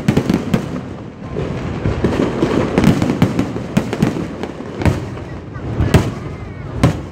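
Aerial fireworks going off in quick succession: many sharp bangs over a continuous crackle, with the heaviest bangs about five, six and seven seconds in.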